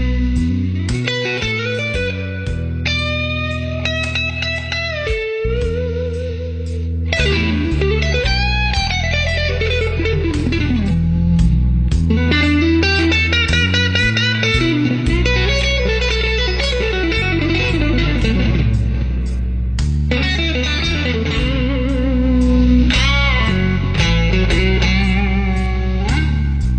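Electric guitar played with effects: a lead melody full of string bends and slides over a bass line that moves in steps.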